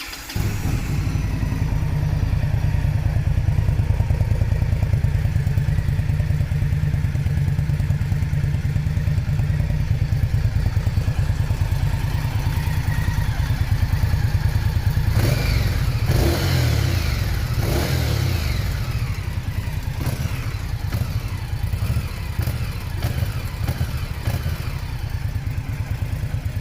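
Indian Scout Bobber's liquid-cooled V-twin running through its stock Euro5 exhaust, a steady, pulsing run. About halfway through, a few throttle changes make the pitch rise and fall.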